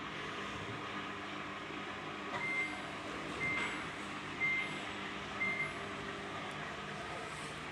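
A washing machine's control panel beeps four times, short high beeps about a second apart, over a steady machine hum. It is the alarm the washer gives with its error code when it is run with the door open.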